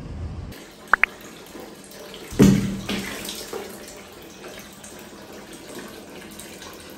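Water running, as from a tap, with two short high rising chirps about a second in and a louder clatter about two and a half seconds in.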